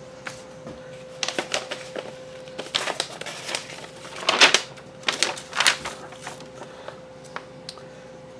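Sheets of printed drawings being handled and turned over: irregular light taps and crinkling rustles, with a faint steady hum underneath.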